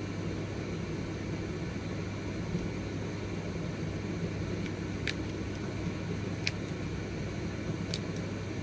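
Steady low hum and hiss of indoor room noise, with a few faint clicks about halfway through and near the end.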